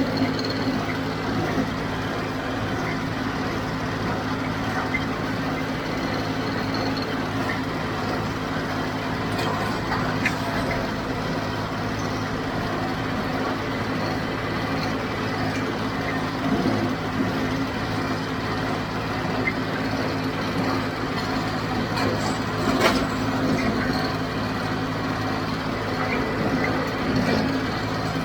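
John Deere 5055D three-cylinder diesel tractor running steadily under load while pulling a John Deere 348 square baler through the hay, with a few short knocks from the baler.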